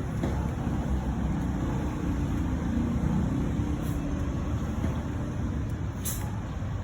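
Steady low mechanical rumble, with one short click about six seconds in.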